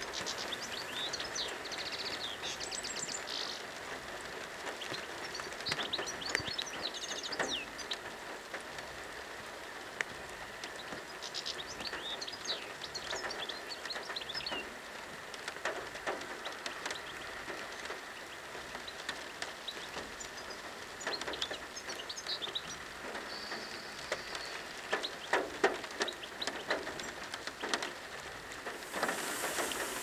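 European goldfinch singing: several bursts of rapid, tinkling twitter, each a few seconds long with pauses between, over a steady background hiss.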